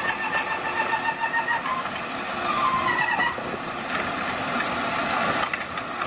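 Automated side-loader garbage truck running as its hydraulic arm empties a wheelie bin and lowers it back down: a steady engine and machinery noise with high whining tones that shift in pitch, one falling about halfway through.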